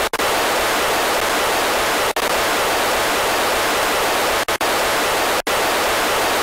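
Steady wall of static-like hiss closing a recorded noise-rock song, cut by a few split-second dropouts, twice close together near two-thirds of the way through.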